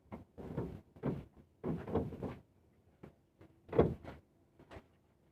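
A run of irregular knocks, scrapes and rustles from objects being handled and moved about, each lasting a fraction of a second, with the loudest knock a little before four seconds in.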